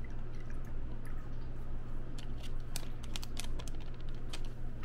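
Plastic-foil sachet of pH 7.0 calibration solution crinkling as it is squeezed out into a small glass, a run of small crackles and clicks that grows thicker about halfway through.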